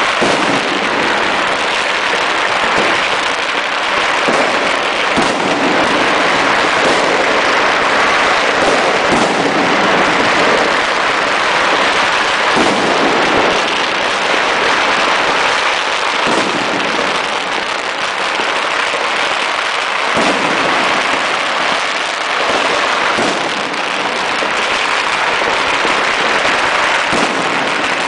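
Firecrackers and fireworks going off continuously in many places at once: a dense, unbroken crackle of pops and bangs.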